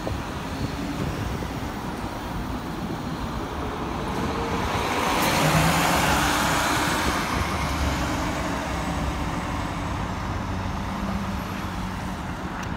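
Prevost X3-45 express coach's diesel engine and tyres as it drives past close by and pulls away, swelling to its loudest about halfway through and then fading, over steady city traffic.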